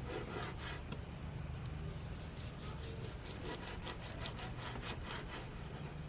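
Knife sawing back and forth through a seared sous-vide tri-tip steak, slicing it in a quick run of repeated strokes.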